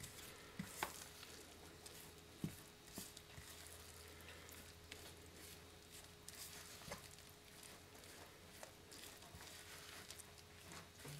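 Spoon stirring flour and water in a plastic mixing bowl, a first mix of a still-floury bread dough. It is faint, with scattered light knocks of the spoon against the bowl, a few sharper ones near the start, over a faint steady hum.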